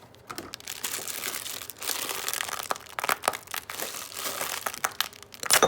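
Plastic packaging of a boxed brownie mix crinkling and crackling as it is handled and pulled out of its cardboard box, with one loud sharp crackle near the end.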